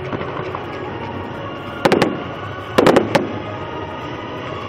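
Fireworks display: aerial shells bursting in two pairs of sharp bangs, about two and three seconds in, each bang trailing off in an echo.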